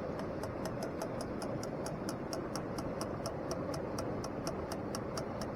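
A rapid, even ticking, about four sharp high ticks a second, running over a steady rushing background noise.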